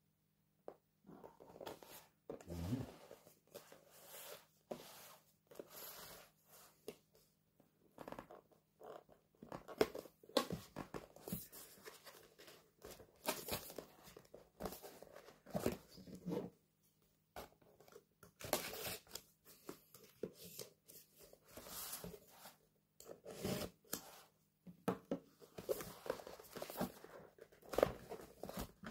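Hands opening a cardboard Blue Yeti microphone box: fingers pick and scratch at the top flap and tear at the packaging, in irregular short scrapes and crackles, with louder bursts now and then.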